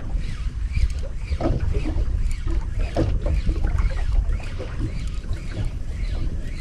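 Water lapping and slapping irregularly against a small wooden boat's hull, over a steady low rumble of wind and sea.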